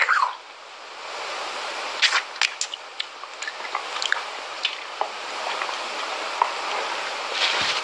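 Wet grey cement-like paste squished and poked with a finger: scattered small wet squishes and clicks over a steady hiss, with a cluster of them about two seconds in.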